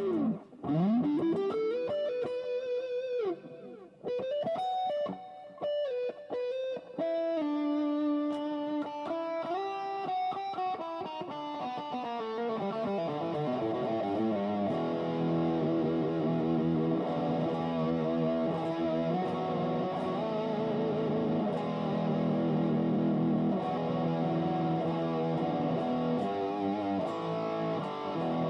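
Aria Pro II XR-series ST-3 electric guitar playing single-note lead lines with bent notes and a deep swoop down and back up in pitch near the start. About halfway through it moves to held chords that waver.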